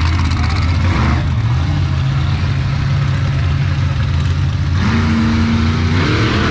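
Monster truck engine running loud at a steady note, then revving up sharply about five seconds in.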